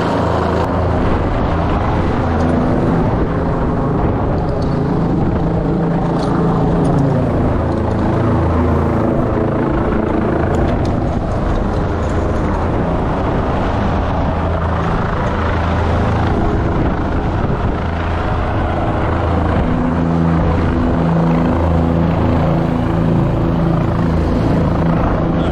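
Helicopter hovering close overhead, its rotor and engine running loud and steady.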